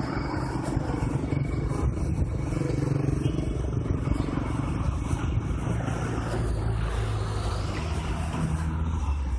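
Engine and road noise of a moving vehicle driving along a city road: a steady low engine hum that shifts pitch a few times over the tyre and road noise.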